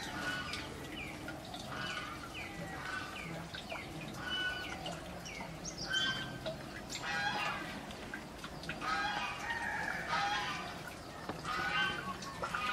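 Live chickens clucking and calling: a string of short, falling calls about two a second, with a few longer, fuller calls mixed in.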